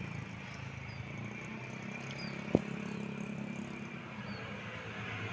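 Steady low hum of vehicle engines on the street, with a single short thump about two and a half seconds in.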